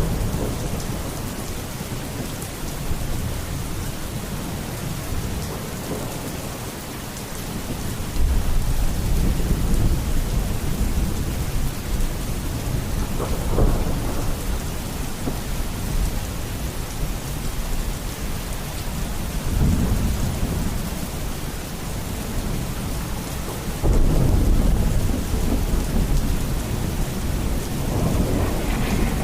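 Steady rain with rolling thunder. Deep rumbles swell up several times, the loudest beginning about eight seconds in and again about twenty-four seconds in.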